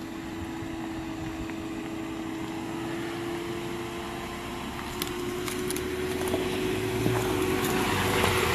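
Jeep Cherokee Trailhawk driving slowly over a gravel road toward and past the listener: a steady engine hum with tyres crunching on the gravel, growing louder as it nears.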